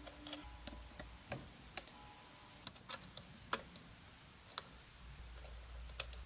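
Scattered, irregular light clicks and taps from a small screwdriver and fingers handling a plastic light-sensor housing while turning its time-adjustment dial.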